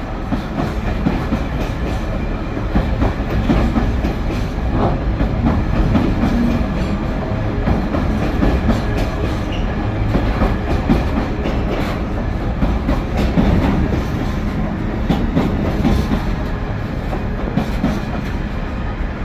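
Freight train wagons loaded with old sleepers rolling past, a steady rumble with the wheels clicking over the rail joints throughout.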